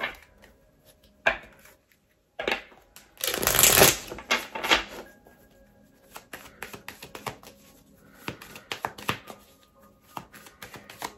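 Tarot cards being shuffled and handled to draw a clarifier card: sharp card slaps and clicks, a dense riffling flurry about three seconds in, then a run of quick light card ticks through the second half.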